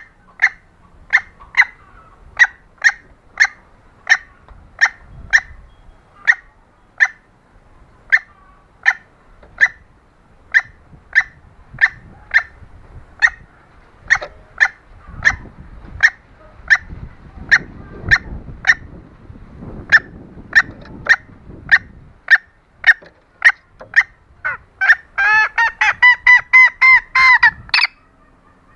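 Female green junglefowl calling with short, sharp clucks, about one and a half a second, then near the end a faster run of clearer, pitched clucks. It is the hen's mating call, used to lure males.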